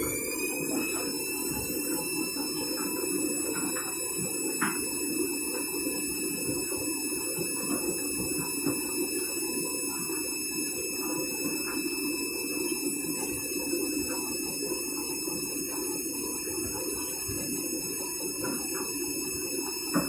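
Candy Grando Vita washing machine spinning its empty drum: a high motor whine that finishes rising in pitch right at the start, then holds steady over a lower rumble from the drum.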